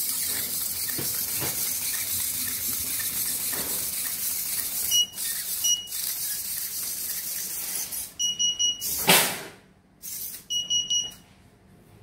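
Steady hiss, broken by short high electronic beeps. Two single beeps come about five and six seconds in, then quick runs of three or four beeps near eight seconds and again near ten and a half seconds. A loud brief whoosh comes between the two runs.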